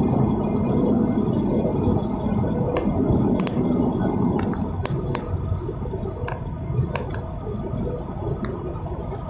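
Steady low rumble of a Boeing 737's cabin noise on approach, engines and airflow blending together, easing gradually. Scattered sharp clicks of cabin rattles sound through the middle.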